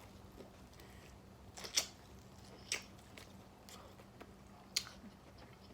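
A person eating and chewing, with a few sharp wet mouth clicks; the loudest comes about two seconds in.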